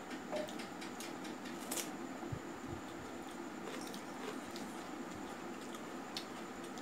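Close-up eating sounds of rice and chicken curry eaten by hand: chewing and wet mouth clicks, with small squishes and taps of fingers mixing rice on a steel plate. A low steady hum runs underneath.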